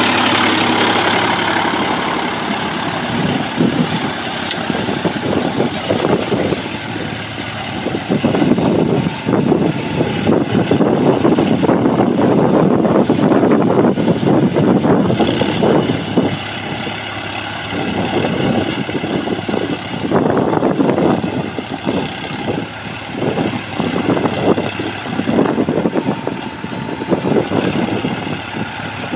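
Mahindra Yuvo Tech+ 405 DI tractor's diesel engine running while it pulls a disc harrow through dry soil, its loudness rising and falling.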